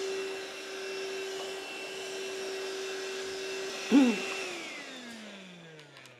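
Stick vacuum cleaner running with a steady whine and hiss. About four seconds in there is a brief louder sound, and then the vacuum is switched off: its motor winds down with a falling whine that fades out.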